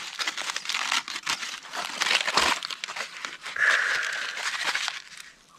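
Crinkling and rustling of something being handled close by, running on for about five seconds and then stopping.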